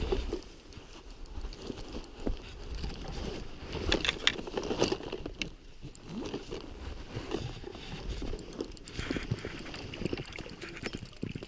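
A hooked white-spotted char thrashing at the water's surface, throwing irregular splashes as it is played to the bank.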